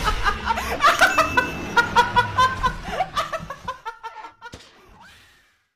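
A young woman laughing hard in rapid, high-pitched bursts that fade away about four seconds in.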